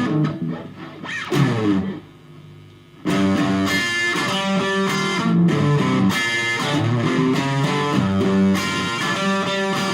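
Stratocaster-style electric guitar played through a small Studio Valve SVH (G408CE) valve amp with no pedals. Single-note lines with string bends, a brief drop-off around two seconds in, then quicker runs of notes from about three seconds.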